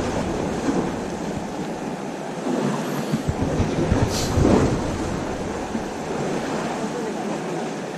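Wind buffeting the microphone over the sound of sea water washing against a concrete breakwater, with one brief louder splash-like hiss about four seconds in.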